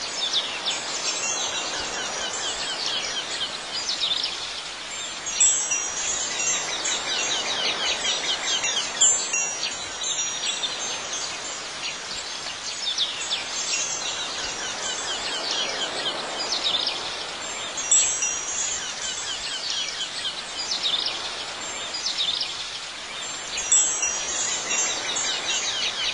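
Chimes tinkling over a soft steady hiss, with a cluster of bright high ringing notes every four or five seconds.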